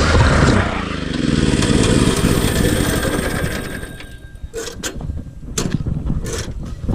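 Small go-kart engine running loud, its pitch dropping as it comes off the throttle, then fading away about four seconds in, with a few sharp clicks after that.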